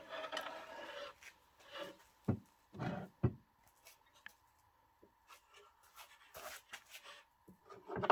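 Scattered soft knocks, taps and rubbing, a few louder ones about two to three seconds in: parts and tools being handled.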